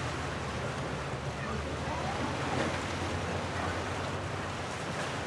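Steady wind noise on the microphone with a rush of water and waves: an even hiss over a constant low rumble.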